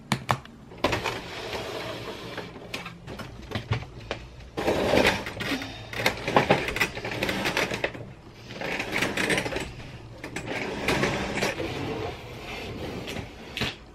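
Handling noise of an inkjet printer job: plastic clicks and clatter as ink cartridges are pulled from the printer and the printer is shifted, then rustling and scraping as a cardboard box is cut open. The clicks are irregular, with noisy stretches in between.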